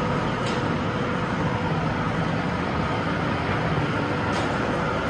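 Factory production machinery running: a steady, loud mechanical rumble and hiss with a faint hum held through it, and two soft ticks, one near the start and one near the end.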